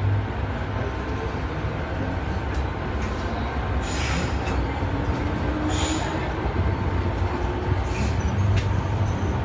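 Cabin noise inside a Hong Kong MTR M-Train accelerating out of a station: a steady rumble of wheels on track with a faint motor whine edging up in pitch, growing slowly louder. Short high-pitched bursts come about four and six seconds in.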